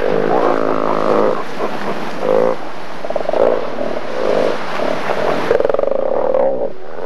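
Southern elephant seal bulls roaring in a fight: a string of loud calls, ending in a long rattling roar near the end.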